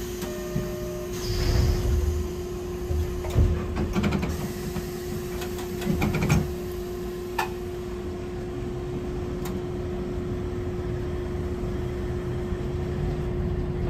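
Hankai Tramway Type 701 streetcar running, heard from on board: a low rumble of wheels on rail under a steady hum, with a few sharp knocks along the way.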